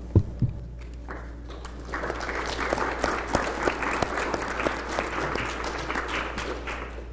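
An audience applauding, the clapping building about two seconds in and fading out near the end. Two low thumps at the very start, the first the loudest moment.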